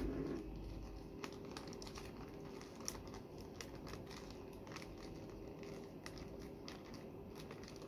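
Faint crinkling and scattered light ticks of a thin plastic zip-lock bag being handled while a strip of tape is stretched and wrapped around its neck.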